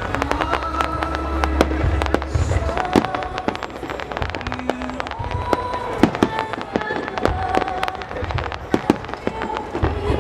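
Fireworks display: many sharp bangs and crackles from bursting shells, over the show's accompanying music with long held notes.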